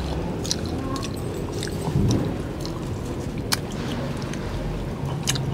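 A shared meal being eaten: a few sharp clicks and taps of chopsticks and bowls over a steady low background noise.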